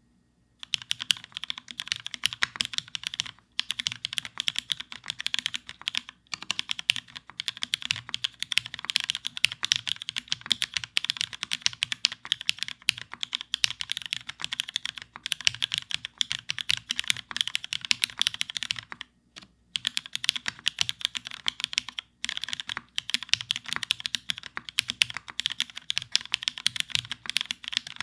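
Fast, continuous typing on a custom Theca X Rubrehose mechanical keyboard with linear Cherry Hyperglide MX Black switches on an aluminium plate, no case foam and GMK doubleshot ABS keycaps: a dense stream of keystroke clacks with a few short breaks.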